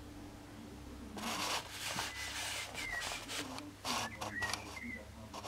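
Paper rustling as a paperback journal is opened and its pages handled and turned, in several short bursts from about a second in. A few faint, short high chirps sound in the background.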